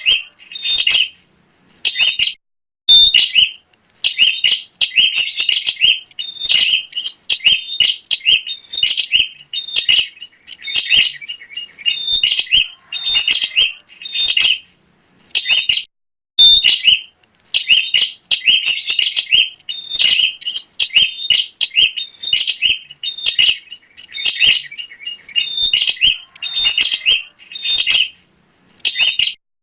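Prinia (prenjak) singing actively: loud, rapid high chirping phrases in repeated bursts of a second or two, separated by brief pauses.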